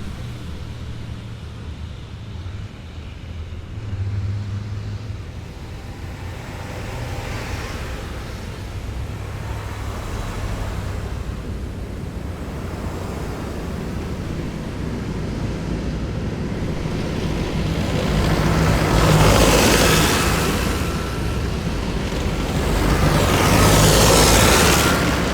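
Heavy military vehicles driving past in a column, their engines rumbling steadily. Two vehicles pass close and loud near the end, each swelling and fading with a thin whine over the noise.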